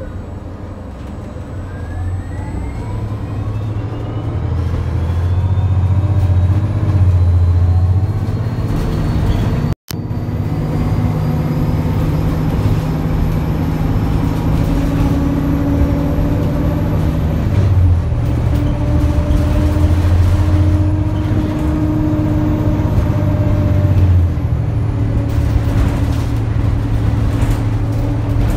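Inside a moving city bus: the drivetrain runs with a low hum and whines that rise in pitch as the bus gathers speed over the first several seconds, then settle into steadier tones while it cruises. The sound cuts out for an instant about ten seconds in.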